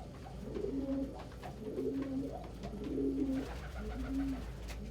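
Domestic pigeons cooing, a low coo phrase repeated about once a second.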